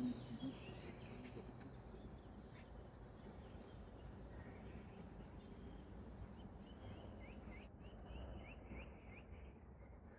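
Faint outdoor ambience: steady low background noise with small birds chirping, including a quick run of short chirps near the end. A brief low bump sounds right at the start.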